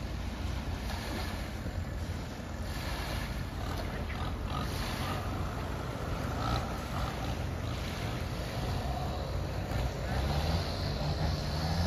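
Speedboat outboard engines running with rushing water and wind noise, the engine pitch rising near the end.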